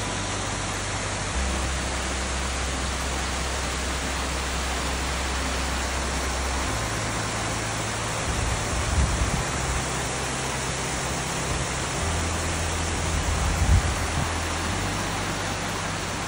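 Small waterfall and cascading spring-fed creek rushing steadily. A couple of brief low bumps on the microphone come about halfway and near the end.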